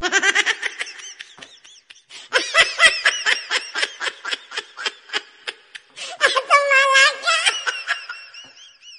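Cartoon laughter in quick, high-pitched repeated ha-ha bursts, with a longer drawn-out laugh near the end.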